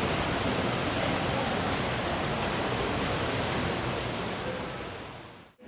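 Steady rushing noise with no distinct events, spread evenly from deep to hiss, that fades away near the end.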